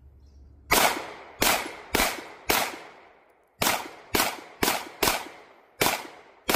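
Springfield Echelon 9mm pistol being fired about ten times in two strings: four shots roughly half a second apart, a pause of about a second, then six more at a similar pace.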